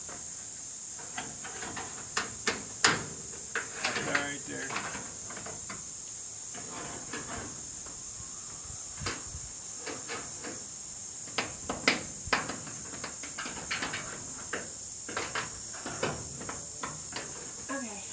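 Insects calling steadily at a high pitch, with scattered light clicks and knocks of a corrugated metal wall sheet being handled and pressed against the wooden framing; the sharpest knocks come about 3 s and 12 s in.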